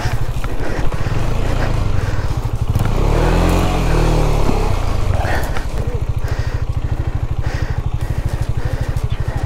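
Single-cylinder motorcycle engine running with a steady pulsing idle, revved once about three seconds in, its pitch rising and then falling back.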